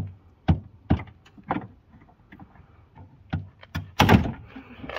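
Sharp plastic clicks and knocks as a VW Polo's stuck rear light cluster is levered at, then a loud crack about four seconds in as its nasty retaining clip gives and the unit comes free. The crack sounds like something breaking, and the clip's mounting hole is left slightly damaged.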